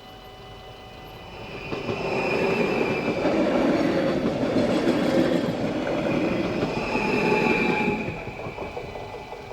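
A train passing over the level crossing, its wheels rumbling and clattering on the rails. It builds about a second and a half in, stays loud for about six seconds, and fades near the end, with a higher wheel squeal at the start and end of the pass.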